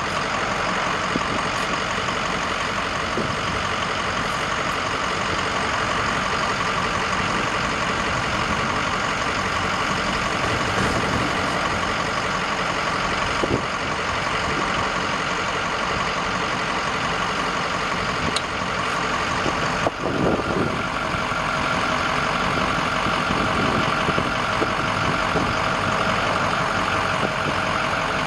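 An engine idling steadily, with a brief knock about twenty seconds in.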